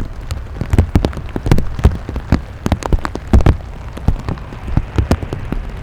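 Rain falling, with large drops striking close to the microphone as loud, irregular ticks, several a second.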